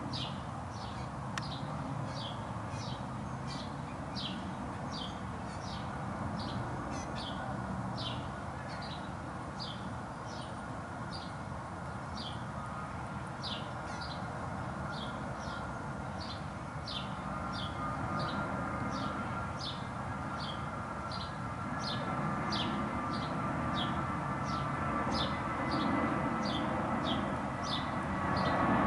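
A bird calling over and over with short, high, downward-sliding chirps, about one and a half a second, over a steady background hum that grows louder in the second half.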